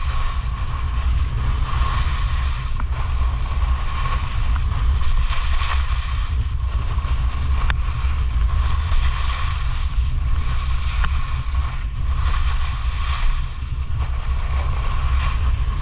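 Wind buffeting on the microphone, with the hiss of snowboard edges carving over groomed snow, swelling and fading every second or two with the turns.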